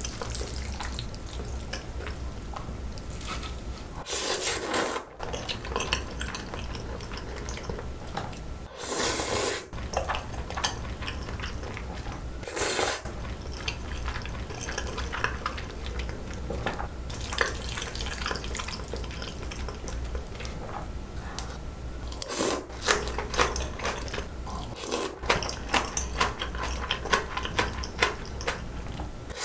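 Close-miked eating sounds: bibim noodles slurped in about six short bursts, with chewing and metal chopsticks clicking against the bowls in between.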